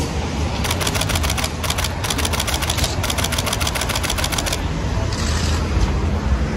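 Camera shutters firing in rapid bursts, about ten clicks a second for some four seconds, with a brief break near two seconds in, over steady street traffic noise.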